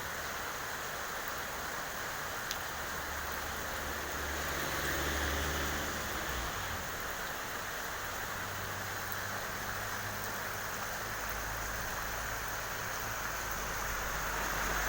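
Steady rain falling, an even hiss of rain, with a low hum underneath that shifts in pitch a few times.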